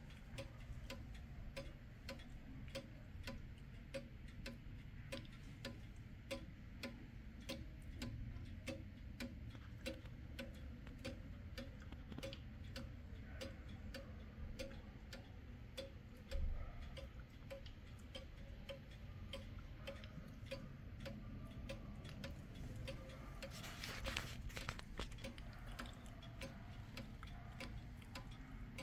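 Kienzle pendulum wall clock from about 1920 ticking steadily, its escapement giving an even train of sharp ticks, with a short thump midway and a brief rustle of noise near the end.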